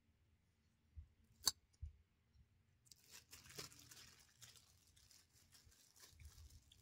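Faint rustling and crinkling of a thin plastic bag of bread as a hand reaches in, starting about three seconds in, after a single sharp click about a second and a half in.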